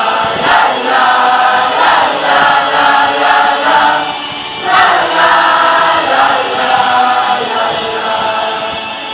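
A mixed choir of teenage boys and girls singing together, with a short break between phrases about four seconds in.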